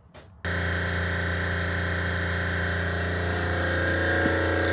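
Water-cooled Copeland refrigeration compressor unit starting up about half a second in, then running with a steady hum.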